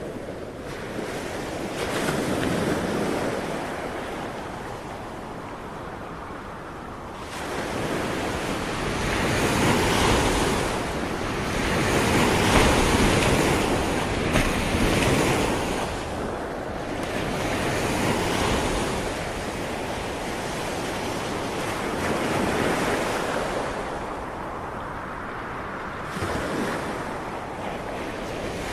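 Ocean waves breaking and washing up on a shore, the surf swelling and easing every few seconds, with wind buffeting the microphone.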